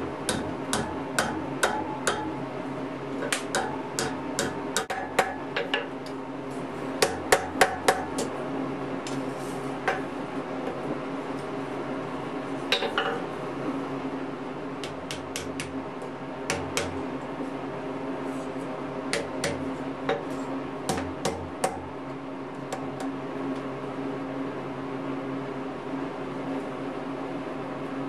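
Hand hammer striking a hot 3/8-inch square iron bar on the anvil as it is bent into a ring: sharp metal-on-metal blows in bursts of several strikes with pauses between, loudest about seven to eight seconds in. A steady low hum runs underneath.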